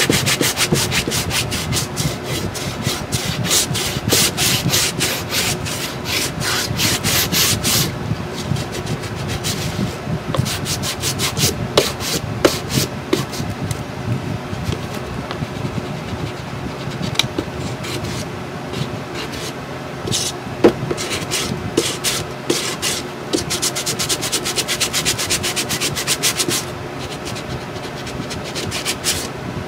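Sanding block rubbed back and forth over painted chipboard, scratching back the dried antiquing cream and paint in quick strokes, about four a second. The strokes are hard and dense for the first several seconds, lighter and sparser in the middle, and dense again a few seconds before the end.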